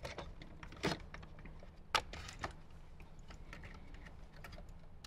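Plastic wiring connectors being pushed into the back of an HVAC control panel and handled: light plastic clicks and rattles, with sharper snaps about one, two and five seconds in.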